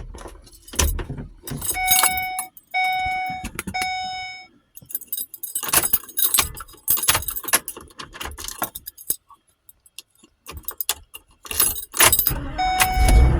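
Keys jangling and clicking in a truck's repaired ignition lock, with a vehicle warning chime sounding three times. Near the end the chime comes on again and the engine starts running with a low rumble.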